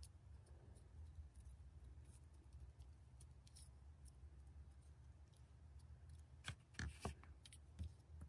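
Near silence over a faint low hum. About six and a half seconds in come a few light clicks and rustles of grosgrain ribbon hair clips being handled on the work mat.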